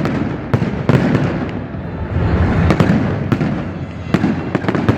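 Fireworks display going off: about a dozen sharp bangs and crackles at irregular intervals, over a steady low background noise.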